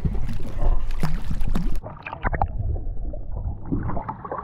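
Water splashing at a boat's side as a large fish is lifted by the tail, with wind on the microphone. About two seconds in the sound turns muffled and gurgling: water sloshing over a camera held at the waterline.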